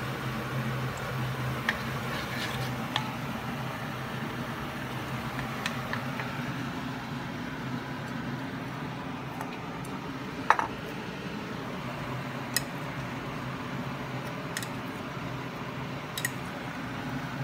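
A metal spoon clinking now and then against a bowl and plate while shrimp are dipped in batter, a handful of sharp clinks with the loudest a little past the middle. Under it runs a steady hiss of shrimp frying in hot oil.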